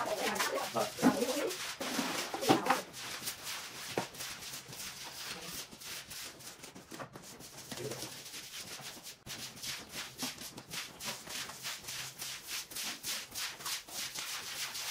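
Repeated scraping or rubbing strokes, with a person's voice talking in the first few seconds.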